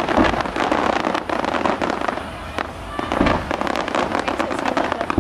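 Fireworks going off in rapid succession: dense crackling and popping, with heavier bangs near the start and about three seconds in.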